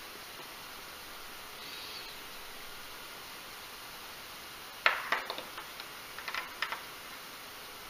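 Steady low hiss with two short clusters of light, sharp clicks, the first about five seconds in and the second a second and a half later.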